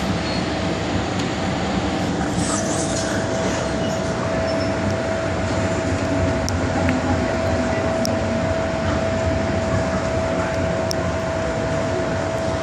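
Old first-generation MTR Island Line electric train (Metro-Cammell stock) running on the line, a steady rumble of wheels and motors with a steady whine setting in about a second and a half in, and a few faint clicks.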